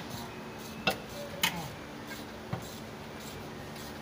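Hand tools clinking against metal car parts: four sharp metallic clicks over about two and a half seconds, the middle two loudest, over a steady low hum.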